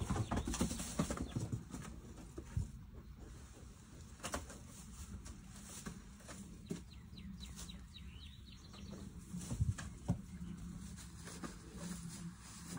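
Rustling and scattered knocks as goats move about on straw bedding and are handled, with a few faint bird chirps in the background.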